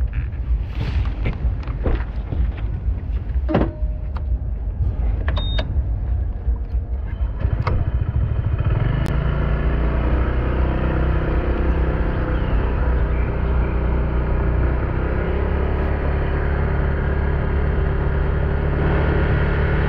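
Motorbike running on the road with a heavy low rumble and a few knocks early on; about eight seconds in, a steady engine note comes in and the sound grows slightly louder.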